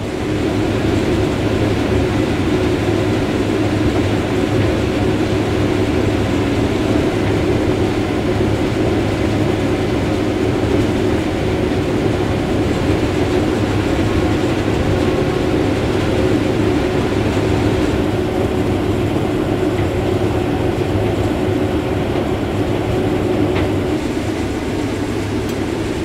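Combine harvester running steadily while shelling corn, heard from inside the cab: a constant deep mechanical hum of the engine and threshing machinery with the engine at full load.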